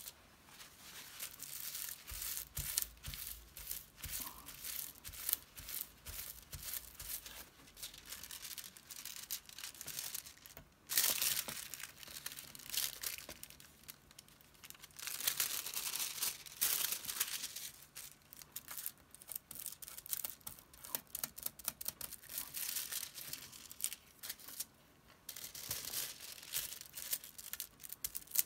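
Thin decorative foil sheet crinkling and crackling as it is pressed onto and pulled off tacky die-cut pieces, with louder crackly stretches about eleven seconds in and again around fifteen to seventeen seconds.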